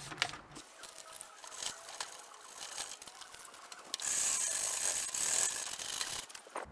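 A few short squirts of a trigger spray bottle, then, about four seconds in, a steady scrubbing of a brush on the metal floor of a camping stove for about two seconds that stops abruptly.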